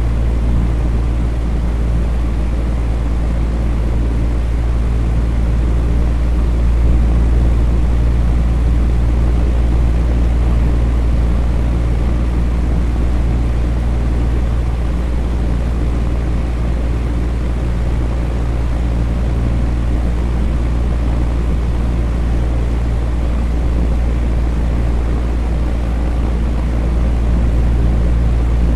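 Electric fan running steadily: a low hum with the even rush of moving air, unchanging throughout.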